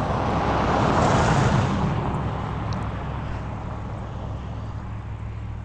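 Pickup truck driving past on an asphalt road. Its tyre and engine noise swells to its loudest about a second and a half in, then fades as it moves away.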